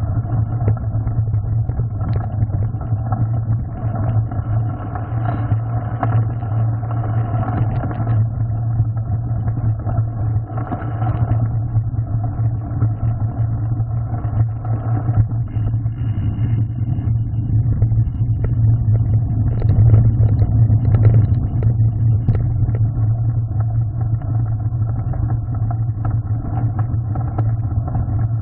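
Mountain bike riding a gravel forest trail, heard from a handlebar-mounted camera: a steady low rumble of tyres and wind with frequent small knocks and rattles as the bike runs over stones.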